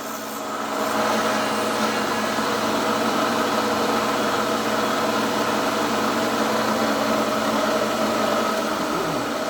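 A machine tool's electric motor runs steadily as it works metal, slowing down just before the end.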